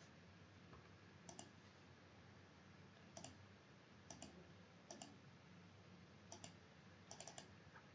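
Faint computer mouse clicks, several in quick pairs like double-clicks, spaced a second or so apart over near-silent room hiss.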